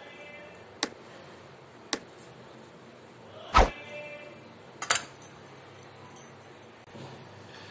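Kitchen knife and hands knocking against a small ceramic bowl and a plastic cutting board while tomato pulp is scraped out: a few sharp, separate clicks, with one duller knock about three and a half seconds in as the loudest.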